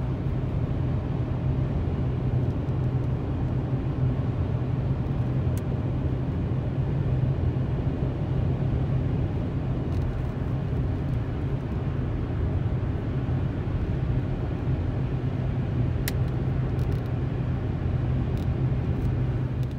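Steady drone inside a car cruising on a highway: a low engine and drivetrain hum under tyre and road noise, with a few faint ticks.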